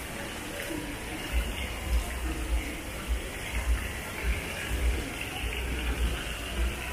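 Indoor shopping-mall ambience, an even wash of noise, with the low thuds of footsteps from someone walking with the recorder, about one every half second or so, starting about a second in.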